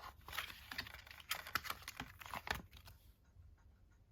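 Hands handling a Blu-ray Steelbook case: a quick run of light clicks, taps and rustles that stops about three seconds in.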